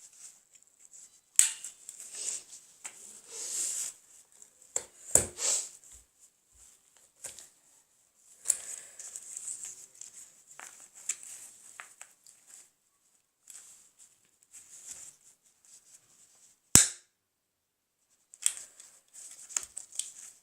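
Paper being handled and rustling, with several sharp clicks of a stapler driving staples through the paper; the loudest is a single snap late on.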